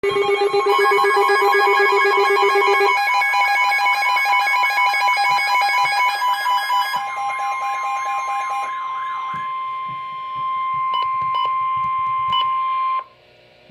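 Several electronic alert alarms sounding at once: overlapping beeping, pulsing and warbling tones that drop out one after another, leaving a single steady tone that cuts off suddenly near the end. The alarms herald a severe thunderstorm warning.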